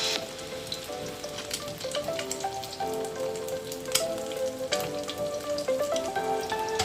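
Eggs frying in hot oil in a wok, a steady sizzle with scattered pops, over background music.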